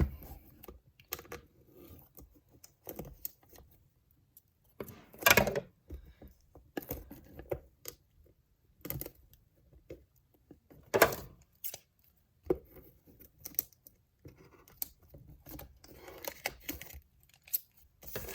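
Plastic shrink wrap being picked at and torn off a cardboard box: scattered crinkles and small clicks, with a couple of louder tearing crackles about five and eleven seconds in.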